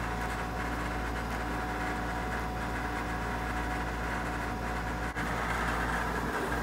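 Steady low hum of room background noise, unchanging, with a brief dropout about five seconds in.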